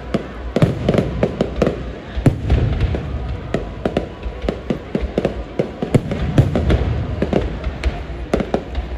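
Aerial fireworks shells bursting overhead in quick, irregular succession: a dense string of sharp bangs and crackles over a continuous low rumble.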